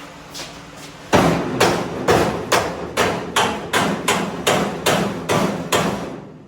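Hammer pounding on steel about a dozen times in a steady rhythm, a little over two blows a second, starting about a second in: driving a part out of a race-car chassis.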